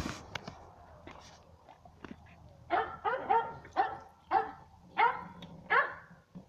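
A dog barking: a run of six short barks, about two a second, starting a little under three seconds in.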